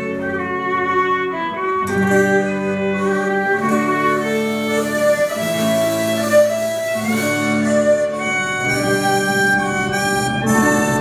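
Live folk band playing an instrumental tune, with fiddle, accordion, banjo and guitars together.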